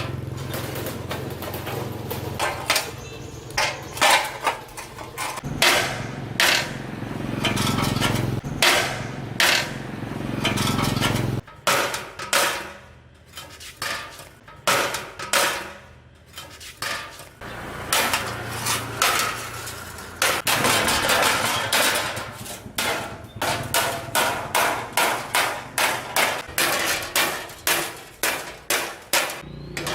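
Repeated hammer blows on metal during repair of a rice threshing machine, irregular at first and then a quick steady run of about two strikes a second near the end. A small engine runs steadily under the first blows and cuts off abruptly about eleven seconds in.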